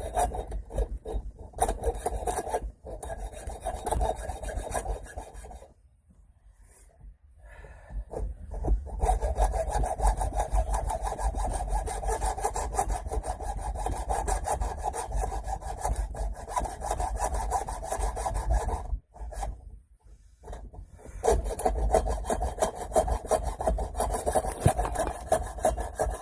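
A blade rasping steadily as it cuts through a wheel centre cap. It dies away twice: once after about six seconds for a few seconds, and again briefly near the end before it resumes.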